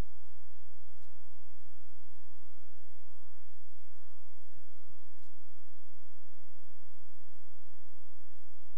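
Steady, unchanging electrical hum, deepest and loudest at the bottom with many steady overtones above it.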